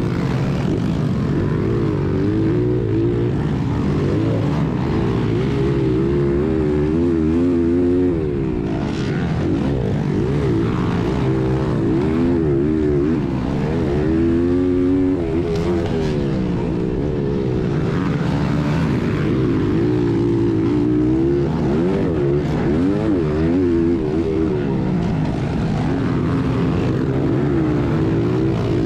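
1996 Honda XR100R's small air-cooled four-stroke single-cylinder engine under race throttle, revving up and dropping back again and again as the rider opens and closes the throttle.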